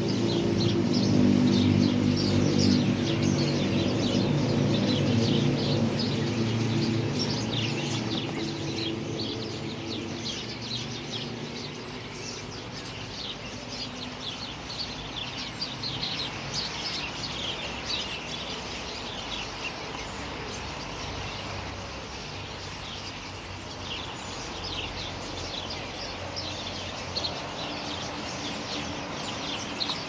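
A large feeding flock of common starlings chattering, with dense overlapping chirps and calls throughout. A low steady hum underneath fades away over the first eight seconds or so.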